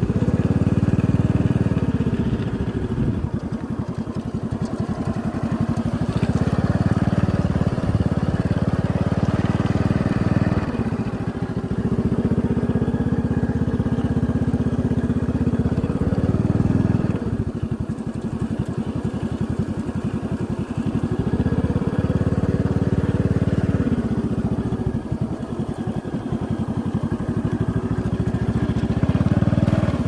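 Motorcycle engine running while riding. Its pitch and loudness rise and fall, pulling harder in four stretches of a few seconds each and easing off between them.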